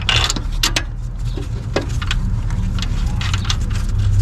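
Metal parts clicking and clinking, a bolt and tools handled while a car alternator is fitted into its mounts, as a scatter of short sharp clicks with a small cluster about three seconds in. A steady low rumble runs underneath.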